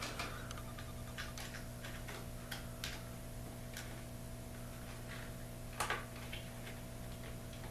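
Scattered small clicks and taps from wire connectors and parts of a garage door opener being handled while it is wired up, with a louder double click about six seconds in, over a steady low hum.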